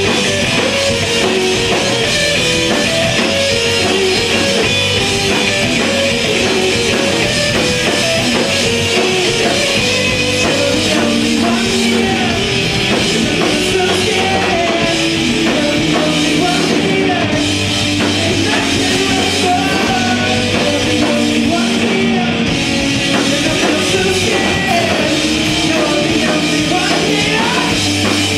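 Progressive rock/metal band playing live: electric guitars, bass guitar and drum kit, loud and unbroken.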